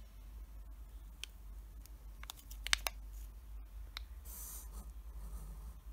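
A wrapped candy stick handled in the fingers: a few sharp clicks and crinkles of the packaging, loudest in a quick cluster about two and a half seconds in, then a brief rustle as it is turned over.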